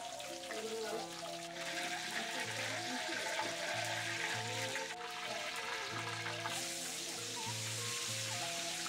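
Sundanese kecapi suling music, plucked zither with bamboo flute, plays throughout. Under it, hot oil sizzles in a wok of frying tofu from about one and a half seconds in, growing weaker after about six and a half seconds.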